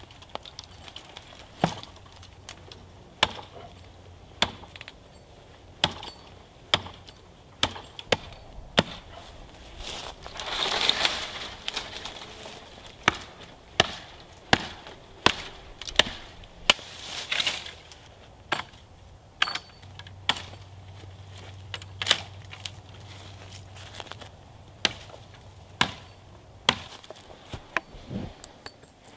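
Hatchet chopping into the trunk of a small standing tree: sharp wooden strikes about once a second, with a longer splintering rush about halfway through as the trunk gives way.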